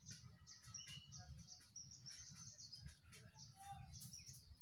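Near silence: faint low background hum with faint high-pitched chirps, typical of distant birds.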